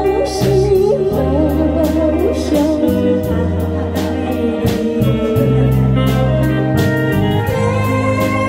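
A woman singing into a microphone, her voice wavering in vibrato, backed by a small live band with a steady beat.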